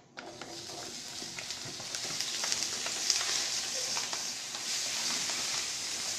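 Chopped bacon hitting hot olive oil in a large enamelled frying pan: it sizzles at once and grows louder over the first few seconds, with small clicks from a spatula stirring the pieces.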